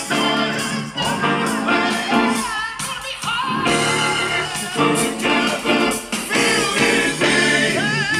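Music: a song with a lead vocal singing over a band backing.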